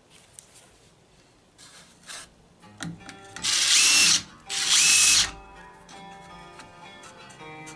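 Power drill with a countersink bit, run in two short bursts of about a second each as it cuts countersinks for screw heads. Music plays in the background through the later part.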